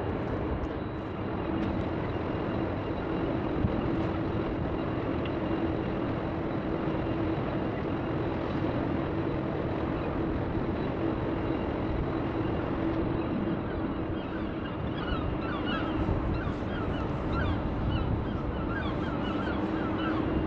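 Steady outdoor rumble with a continuous low hum, and from about two-thirds of the way through, a flock of birds calling in many quick, short chirps.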